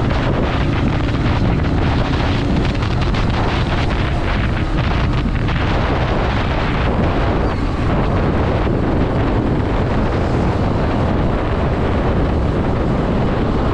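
Steady wind buffeting on the microphone of a motorcycle riding at cruising speed, over a low rumble of engine and road noise.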